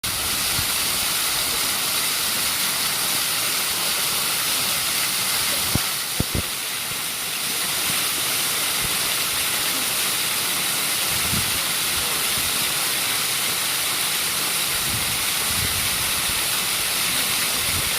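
Waterfall: water falling as a steady rushing hiss, with a couple of brief knocks about six seconds in.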